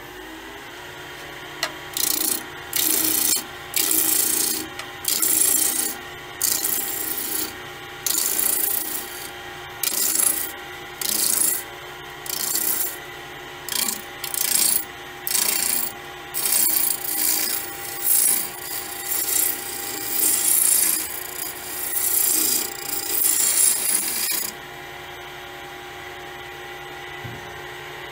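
Wood lathe running with a willow blank spinning, as a roughing gouge makes about twenty short cutting passes along it, each a loud hissing scrape half a second to a second long, about one a second. The cuts stop about three-quarters of the way through, leaving the lathe's steady hum.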